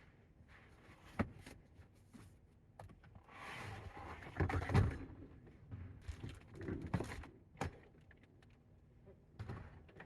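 Rustling and scattered clicks and knocks of gear being handled at close range, with a longer, louder rustle about four to five seconds in.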